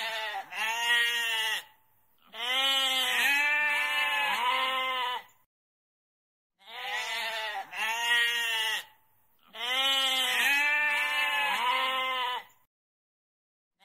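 Goat bleating: several wavering bleats in quick succession, a pause of about a second, then the same run of bleats again.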